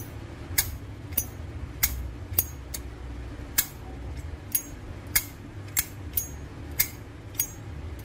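Brass Zippo Armor lighter's thick-walled case being flipped open and snapped shut over and over, a sharp metallic click about every half second.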